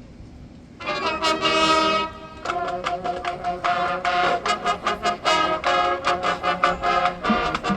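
Marching band brass section comes in about a second in with a loud held chord, then plays a choppy, rhythmic passage.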